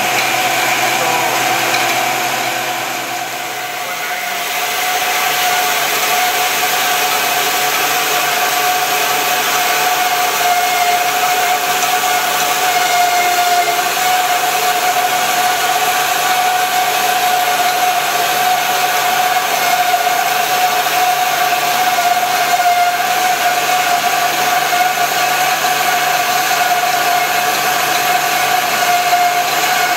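DoALL DC-800NC horizontal band saw cutting through a solid steel block: a steady mechanical running sound with a constant high whine as the blade works through the cut. The sound dips briefly about three seconds in, then holds steady.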